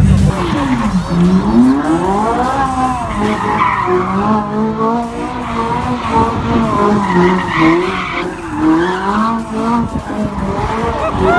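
Ferrari engine revving up and down in repeated sweeps as the car spins donuts, with its rear tyres skidding and squealing on the tarmac.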